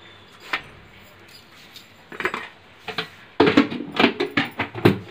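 A spoon knocking and clinking against a mixer jar and sugar container as spoonfuls of sugar are added. A few scattered knocks come first, then a quicker run of knocks in the last couple of seconds.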